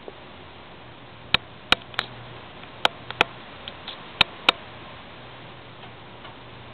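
About seven sharp clicks, several in close pairs, over a steady low hum.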